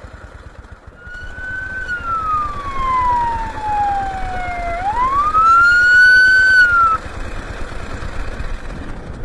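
Police car siren giving one wail to pull a vehicle over: the tone falls slowly for about three seconds, sweeps quickly back up, holds briefly and then stops. Underneath is the steady low rumble of the motorcycle under way.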